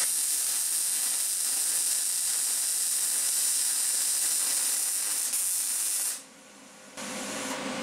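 MIG welding arc on the steel frame, a steady hiss for about six seconds that stops abruptly as the arc is broken.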